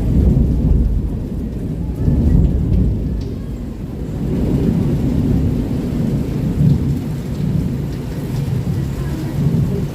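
Thunder rumbling and rolling over steady rain, swelling and easing over several seconds.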